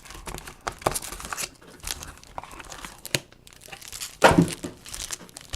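Trading card packaging being torn open and crinkled: foil or plastic wrap rustling and ripping in irregular bursts, loudest a little after four seconds in.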